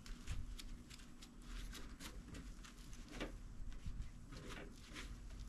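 A microfiber cloth wiping and buffing a freshly polished plastic headlight lens: faint, short rubbing strokes with no regular rhythm.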